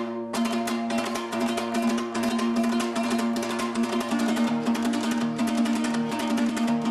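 Kazakh dombra strummed in fast, even strokes, a folk küy melody over a steady drone note.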